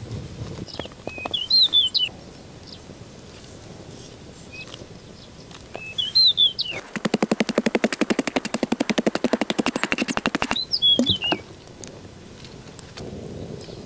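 Birds chirping: short wavering high calls in three bouts. In the middle a loud, rapid, even rattle runs for nearly four seconds.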